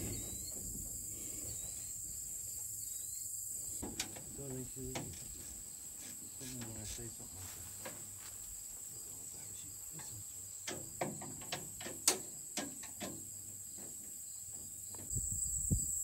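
Steady, high insect chorus of late-summer field insects, with a few sharp clicks bunched in the last third.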